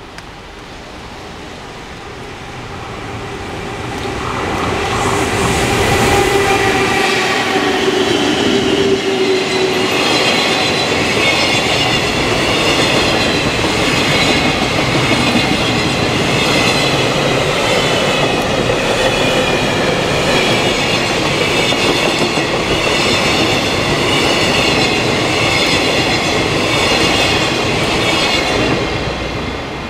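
A JR Freight EF210 electric locomotive and its long train of container wagons passing close by. The sound builds over the first five or six seconds as the locomotive arrives, with a brief hum, then settles into a steady rumble of wheels on rail with a wavering high ringing over it, easing off just before the end.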